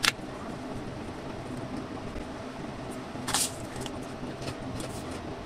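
Crisp lettuce leaves crunching: a sharp crackle right at the start and a longer crunch about three seconds in, with a few faint clicks after. Under it runs a steady low hum.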